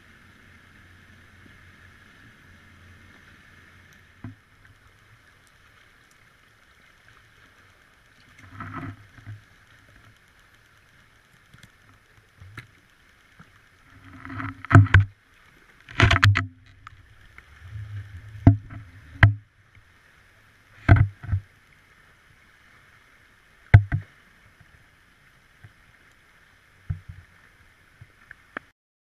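Sharp, irregular knocks and clunks as an underwater camera rig bumps against the bottom and wreck structure, loudest in a cluster around the middle. A faint steady hum runs under them and cuts off near the end.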